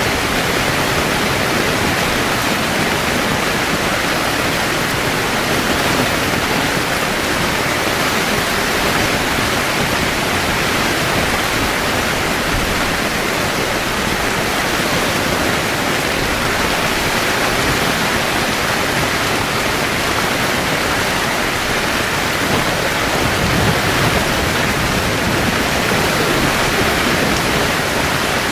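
Heavy rain pouring steadily on a camping tent, a dense even hiss.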